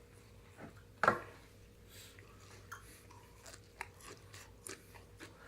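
A person chewing food close to the microphone, with faint scattered clicks and crunches, and one louder short sound about a second in.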